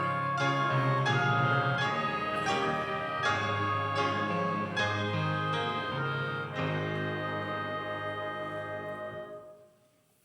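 Instrumental keyboard music: a slow run of sustained chords over a held bass line, which fades and ends about nine and a half seconds in.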